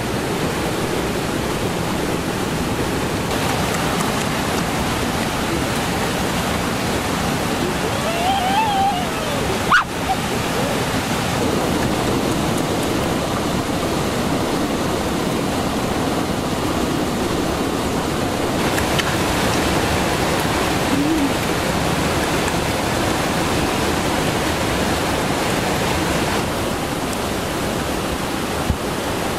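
Rushing stream water tumbling over rocks in a steady, even rush, with a single sharp knock about ten seconds in.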